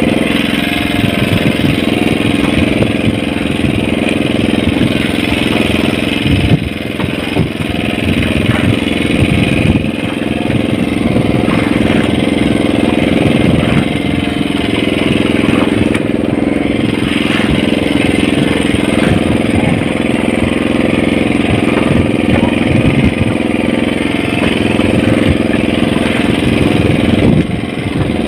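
Small wooden fishing boat's engine running at a steady speed: a continuous hum with a fast, low firing beat.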